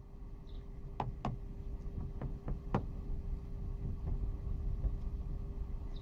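Several sharp taps and clicks, two close together about a second in and a few more around two to three seconds in, the last the loudest, over a steady faint hum and a low outdoor rumble.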